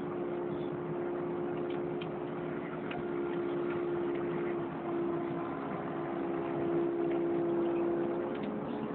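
Kubota KX080 excavator's diesel engine and hydraulics running steadily under load as it digs in a reedy ditch, with a steady whine over the engine note and a few faint knocks.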